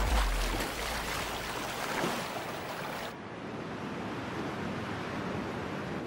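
Ocean surf breaking and hissing, with a heavy low surge at the very start. About three seconds in, the sound changes abruptly to a softer, duller wash of surf and wind.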